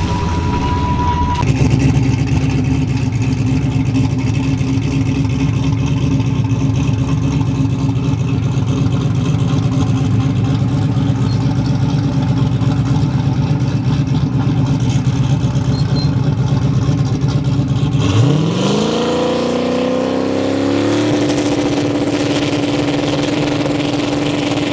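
Drag race car engine running steadily for most of the time, then revving up in one smooth rise about three-quarters through and holding at high revs.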